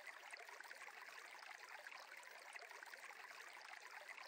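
Faint running stream: a steady trickle of water.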